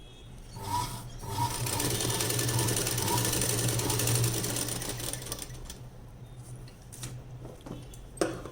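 Sewing machine stitching a tuck (dart) in a blouse front: a short burst of stitching, then a steady run of a few seconds that slows and fades out, with a sharp click near the end.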